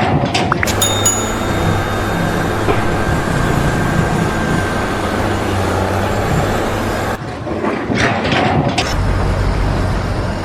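A heavy engine running steadily with a rumbling noise and a few knocks near the start; the sound changes abruptly about seven seconds in.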